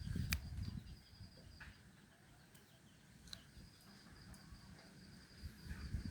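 Faint, steady high-pitched chirring of insects such as crickets, with a low rumble in the first second and two short sharp clicks.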